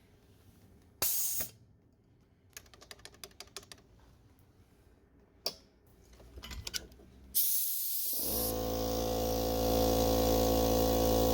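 A few clicks and rattles, then a hiss about seven seconds in. A second later a Central Pneumatic 2 hp, 8 gallon oil-lubed air compressor starts and runs steadily, its electric motor and piston pump going on a test run with fresh oil.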